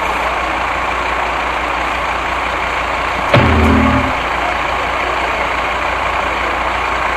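A vehicle engine idling steadily under a constant hiss, with one short, louder low-pitched sound a little over three seconds in.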